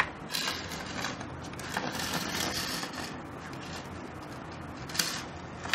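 A homemade magnetic train, a dry cell with button magnets on its ends, goes into a bare copper wire coil with a sharp click and then rattles and scrapes against the coil's turns as it travels through. More sharp clicks come about five seconds in.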